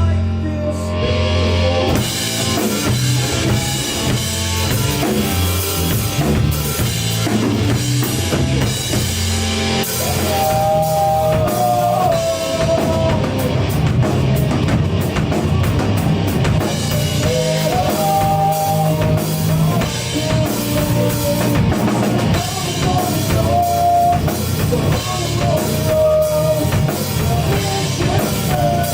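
Rock band playing an instrumental passage on drum kit, bass drum and electric guitars. A held melodic line comes in about ten seconds in and returns several times.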